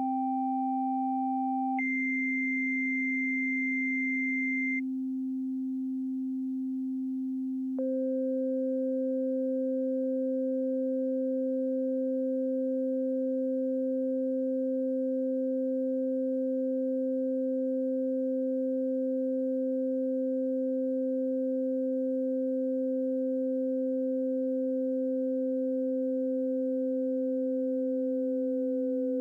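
Synthesized pure sine tones. A steady low sine tone holds throughout while a second sine tone over it changes: first about three times its pitch, then a much higher tone for a few seconds, then a few seconds of the low tone alone. From about eight seconds in, a tone an octave above it holds steady, dipping slightly in pitch near the end.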